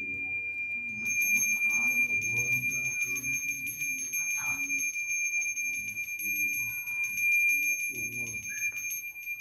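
A steady high-pitched ringing tone with a fast, even pulsing running through it.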